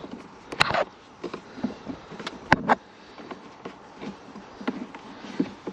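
Sharp clicks and knocks of a T20 Torx driver working on the glove box screws under a car's dashboard, with two louder clicks about half a second in and about two and a half seconds in.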